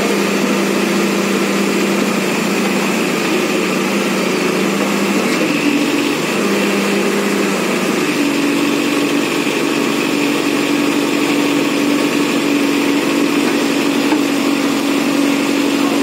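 Case backhoe loader's diesel engine running steadily under load as its bucket pushes a truck out of a drain; the engine note shifts about halfway through.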